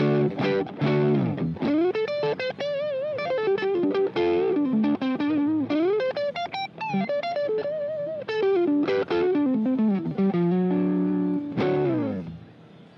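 Electric guitar played through a Maxon Apex 808 Tube Screamer-style overdrive pedal, giving a mildly distorted tone. It opens with strummed chords, moves into a single-note lead line with vibrato on the held notes, and ends on a held chord that fades out near the end.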